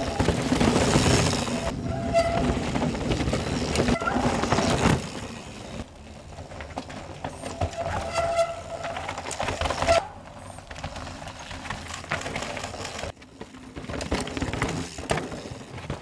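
Cross-country mountain bike's tyres rolling and crunching over loose rock and dirt, louder over the first five seconds, with a few short brake squeals about two, four and eight seconds in. The sound drops and changes abruptly several times as the shots cut.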